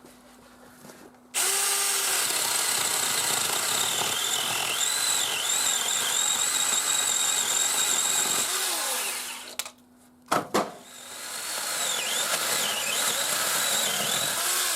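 Seesii PS600 electric pole saw's motor and chain running in two bursts with a high whine. The pitch dips and recovers several times as it cuts into wood. Between the bursts, about ten seconds in, there are a couple of sharp knocks.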